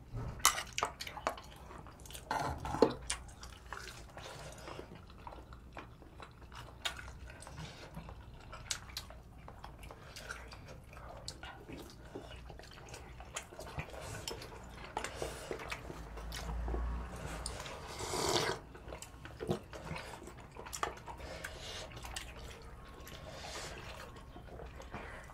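Eating at a table: fish cakes being bitten and chewed, with small clicks of forks, spoons and a ladle against bowls and a pot, and light dripping of broth.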